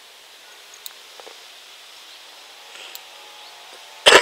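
Quiet outdoor lakeside ambience, a soft steady hiss with a few faint clicks and rustles. Near the end comes one sudden, loud, short thump.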